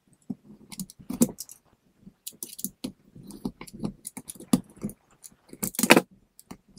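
Utility knife cutting the paper seal strip on a cardboard box: irregular short scrapes and clicks of the blade and box being handled, the loudest near the end.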